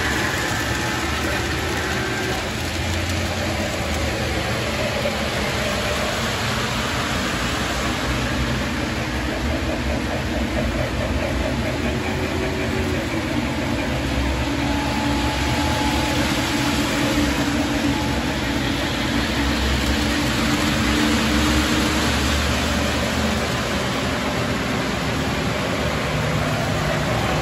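Electric model trains running around a layout: a steady rumble of wheels on the track with the hum of their motors.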